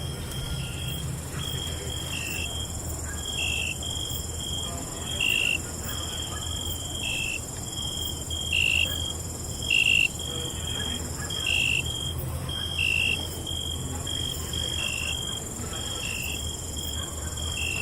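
Crickets chirping: a continuous high trill with a louder, slightly lower chirp repeating about every second and a half, over a steady low hum.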